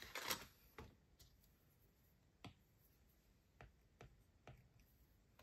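A brief rustle of the plastic envelope pocket in a cash binder, then a handful of faint, sparse ticks of a stylus tip tapping on a tablet's glass screen during handwriting.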